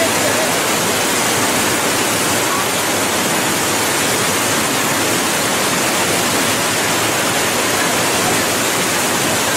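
River water rushing steadily over a low stepped weir, a continuous whitewater rush with no breaks.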